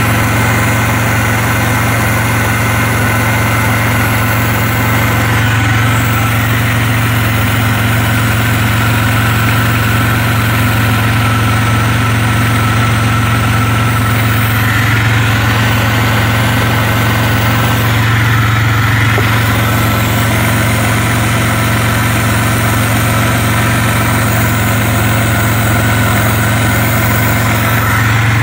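Car engine idling steadily, heard close up in the engine bay, with an even low hum and no revving. The misfire has just been fixed.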